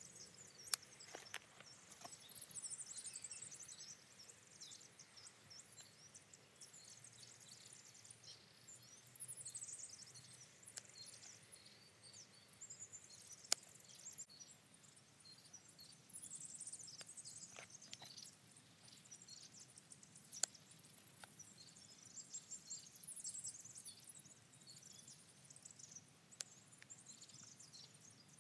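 Faint rustling of pine needles as hands work through the shoots, with a few sharp snips of hand secateurs cutting soft green pine candles; three snips stand out, about a second in, about halfway through and about three-quarters through.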